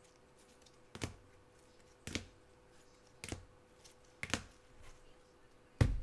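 Hard plastic card cases clacking as they are handled and set down on the table: five sharp clacks about a second apart, the last the loudest with a dull thump.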